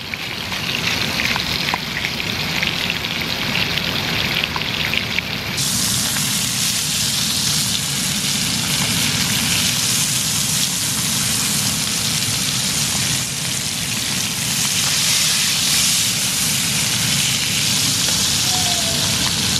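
Trout frying in olive oil in a pan, sizzling steadily as it browns; the sizzle turns louder and brighter about five seconds in.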